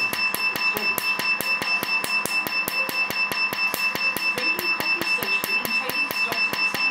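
Tattoo-removal laser handpiece firing a rapid, even train of snapping pulses, several a second, over a steady high-pitched tone.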